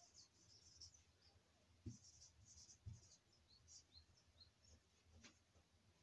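Faint squeaking of a marker pen writing on a whiteboard in short strokes, with two soft low knocks about two and three seconds in.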